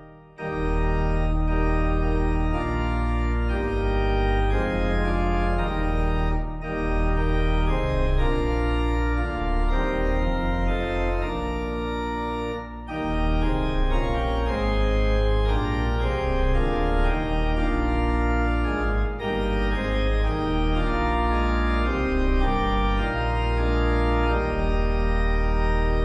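Organ playing a hymn tune in sustained, block chords. It breaks off briefly right at the start and dips again about halfway, between phrases.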